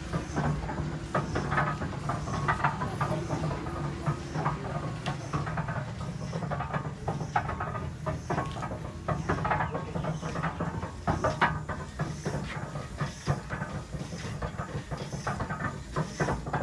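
Dolbeer steam donkey engine running: its steam engine chuffing in an even rhythm with hissing steam and mechanical clatter over a steady low hum.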